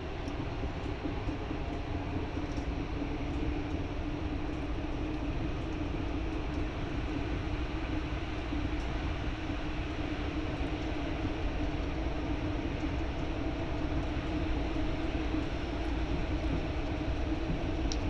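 Driverless metro train running steadily: a continuous rumble with a constant hum.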